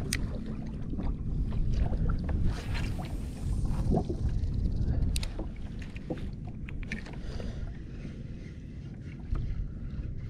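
Steady low rumble of wind and water around a fishing kayak, with scattered light clicks and knocks as a spinning rod and reel are handled.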